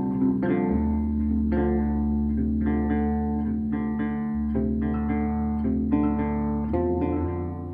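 Background music: plucked guitar notes in a steady rhythm over a sustained bass line.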